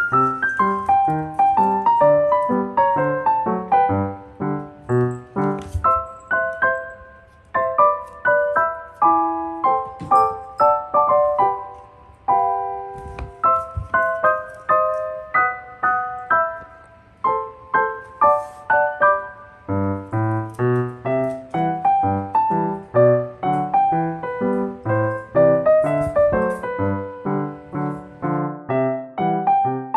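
Background piano music: a solo piano playing a gentle melody with a steady flow of notes.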